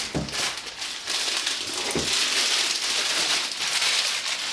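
Clear plastic wrapping rustling and crinkling as it is pulled off a sewing machine, with a soft knock just after the start and another about two seconds in.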